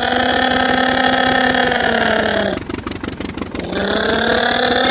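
Truck engine sound for a toy truck, a steady buzzing drone. It cuts off about two and a half seconds in, then starts again a second later, rising in pitch as if pulling away.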